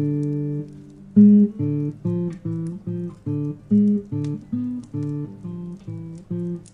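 Solo acoustic guitar playing plucked single notes in the low and middle register. A held note opens, then a steady run of notes follows at about three a second, each one ringing on.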